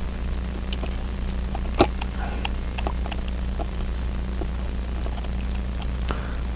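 Sparse small clicks of a watchmaker's screwdriver and tools touching the parts of a pocket-watch movement, with one sharper click about two seconds in, over a steady low hum.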